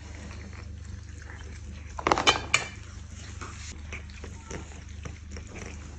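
Small cubes of dry cat food poured from one bowl into another, a brief rattling clatter about two seconds in, followed by a few faint clicks.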